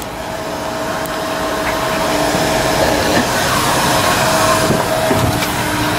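Car wash vacuum station's suction running: a steady rush of air with a whine in it, which drops out near the end.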